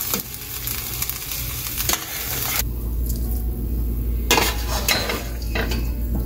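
Thick Manchurian sauce sizzling and bubbling in a stainless steel pan as a spoon stirs the balls through it. About two and a half seconds in the sizzling cuts off suddenly, leaving a low steady hum and a few light clinks of dishes.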